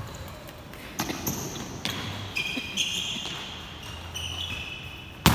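Futsal ball thudding under the players' feet on an indoor court, with sneakers squeaking on the floor. Near the end there is a loud bang as the ball is struck, echoing in the hall.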